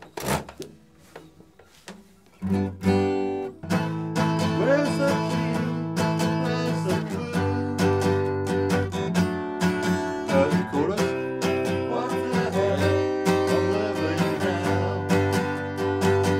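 Two acoustic guitars playing together, coming in about two and a half seconds in after a short knock and continuing without a break.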